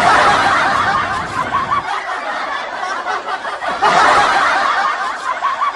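People laughing and snickering, with a louder burst of laughter about four seconds in.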